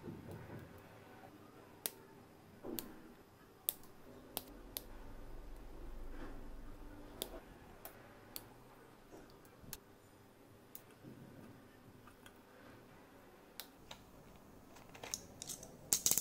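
Side cutters snipping small plastic model-kit parts off the sprue: scattered sharp clicks every second or so, with a quick run of louder snips near the end.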